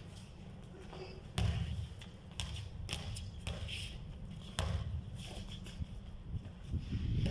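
Basketball hitting a concrete court, with two loud thuds about a second and a half and four and a half seconds in and lighter taps between them.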